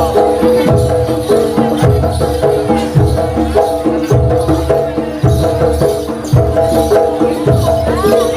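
Jaranan (kuda lumping) troupe music played loud over a sound system: a deep drum beat about once a second under a steady melodic pattern.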